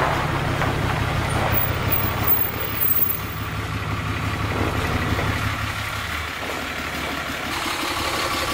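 Ram 3500 pickup truck's engine running as the truck rolls slowly past at low speed. It is a steady low rumble that drops off about six seconds in.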